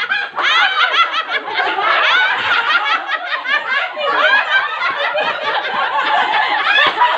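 A group of young people and adults laughing loudly together, many voices overlapping at once.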